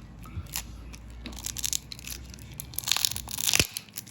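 Crackling, tearing adhesive and small clicks as the glued-in battery of a Samsung Galaxy A17 is pried loose from the phone frame. The crackles come irregularly and are loudest about three seconds in.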